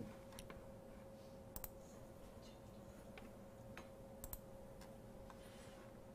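Faint, irregular clicks from a laptop being operated, a handful spread over several seconds with a couple in quick pairs, over quiet room tone with a faint steady hum.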